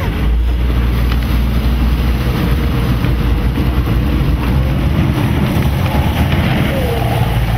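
Motor cargo boat's engine running with a steady low hum as the laden boat manoeuvres away from the quay.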